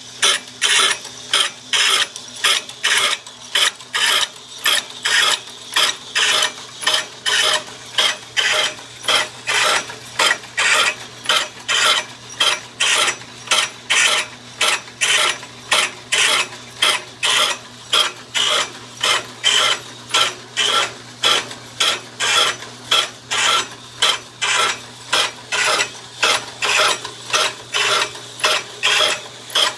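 Grinding wheel sharpening Rayco stump grinder teeth: a harsh rasping grind comes in regular strokes about twice a second over a steady motor hum.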